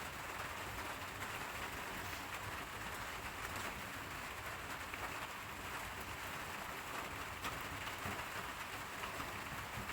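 Steady rain falling, an even hiss dotted with many small drop impacts.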